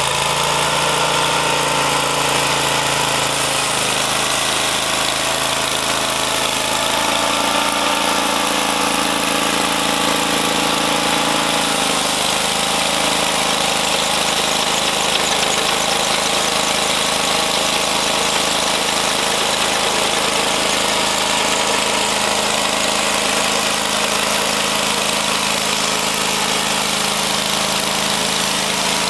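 Portable sawmill's gasoline engine, about 20 horsepower, running just after being started. Its pitch shifts a few times during the first dozen seconds, then it settles into a steady run.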